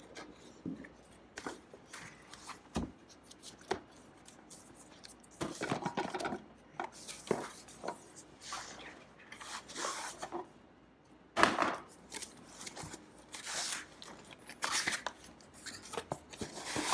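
A cardboard box being unpacked by hand: its paper sleeve sliding off and the box flaps being opened, with irregular scraping and rustling of cardboard and a few sharper knocks.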